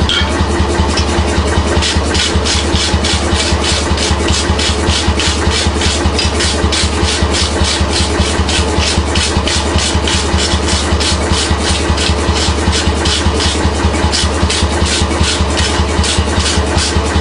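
A workshop machine running steadily, with a low hum and a fast, even clatter of about four to five knocks a second.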